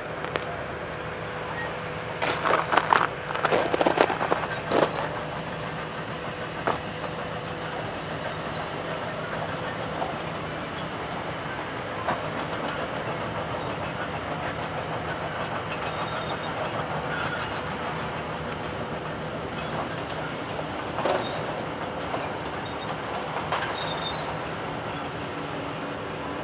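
Heavy demolition machinery running with a steady hum. A burst of loud metal clanks and crashes comes about two to five seconds in, and a few fainter knocks follow later.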